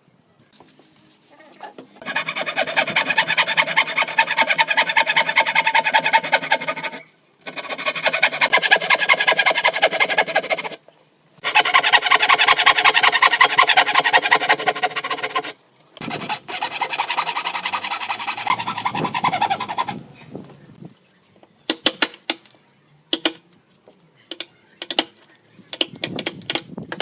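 Wood being sanded: four long stretches of abrasive rubbing, each a few seconds long and cutting off abruptly, followed by scattered sharp taps and clicks near the end.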